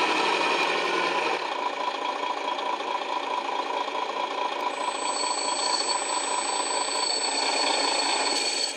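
Electronic diesel engine sound from the bulldozer model's ESS-Dual sound kit, running steadily through its small speaker, then stopping just before the end.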